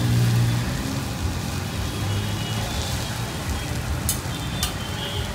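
Chow mein noodles frying on a large flat street-stall griddle, a steady sizzling hiss as the heap is turned, with two sharp clinks of the metal fork against the griddle near the end.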